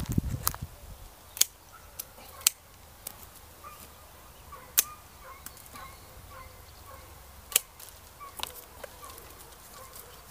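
Hand pruning shears snipping through grapevine canes: a series of sharp clicks at irregular intervals. Faint bird chirps run underneath.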